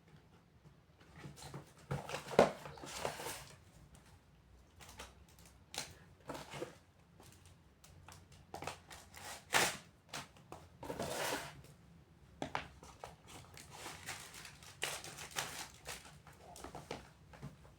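Scattered handling noises from unboxing a pair of men's leather slip-on shoes: short rustles, taps and scrapes of the box, wrapping and shoes. There is a sharp knock a couple of seconds in, another about ten seconds in, and a longer rustle just after.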